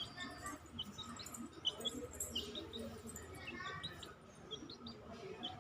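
Small birds chirping: many short, high chirps scattered irregularly throughout.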